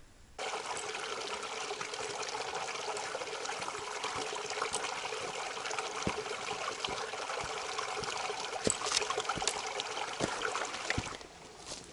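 A small rocky creek trickling and splashing over stones, a steady rush of running water with a few short clicks; it cuts off suddenly near the end.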